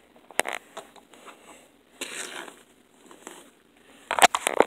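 Handling sounds from the doll being moved about close to the microphone: a few scattered clicks and a soft rustle, then a cluster of sharp taps near the end.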